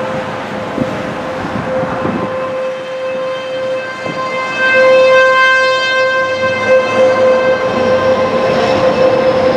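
Fulton T-128 outdoor warning siren sounding a steady wail for a tornado warning. It swells louder about halfway through.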